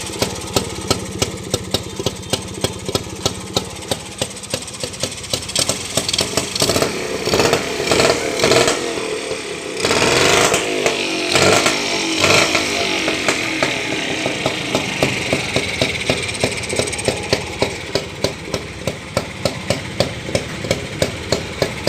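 Rajdoot GTS motorcycle's 175 cc two-stroke single-cylinder engine idling with a regular sharp beat, about two to three a second. It is revved several times in the middle before settling back to idle.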